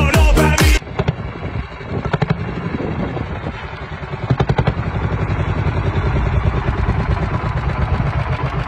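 Dance music with a heavy beat cuts off just under a second in. A tractor engine then runs steadily, with a few sharp knocks, and grows louder toward the end as the tractor comes on.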